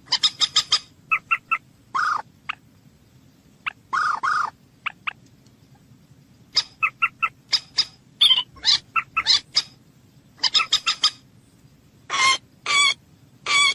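Common moorhen calling: bursts of rapid clicking notes, several a second, alternating with short harsh calls, and three longer harsh notes near the end.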